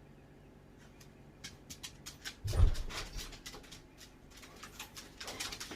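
A run of short, sharp clicks and rustles, with one loud dull thump about two and a half seconds in.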